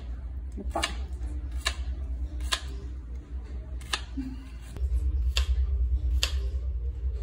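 Kitchen knife slicing garlic cloves on a plastic cutting board: a sharp tap of the blade on the board about once a second, steady and even. A low rumble sits underneath and grows louder about five seconds in.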